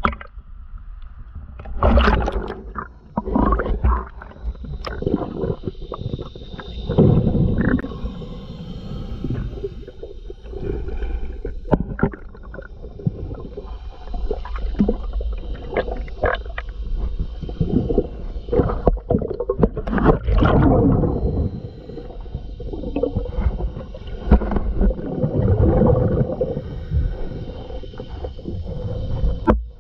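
Scuba diver's regulator breathing heard underwater: a loud bubbling rumble of exhaled air every four to five seconds, with scattered knocks from gloved hands working on the boat's running gear between breaths.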